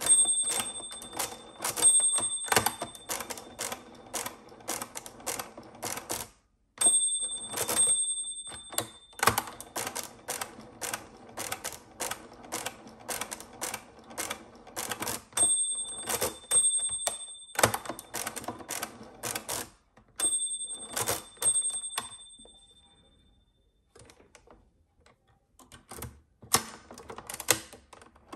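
Pilot P-3 pinwheel mechanical calculator cranked through a long division: rapid ratcheting clicks from the crank and pinwheels. Its bell rings out again and again, each ring held for up to a couple of seconds, as a subtraction overdraws during the division.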